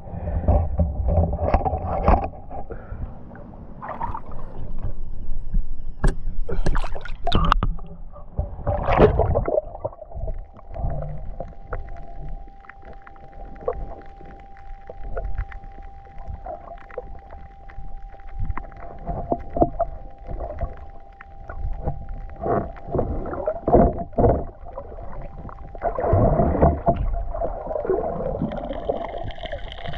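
Seawater sloshing, gurgling and splashing close to the microphone in uneven bursts, as when a swimmer or diver moves through the water.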